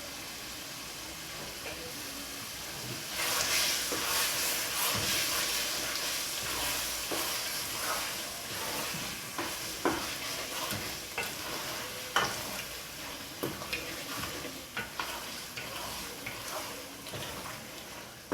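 Tomato and pepper sauce sizzling in hot oil in a pot while it is stirred, with frequent short knocks of the spoon against the pot. The sizzle gets louder about three seconds in.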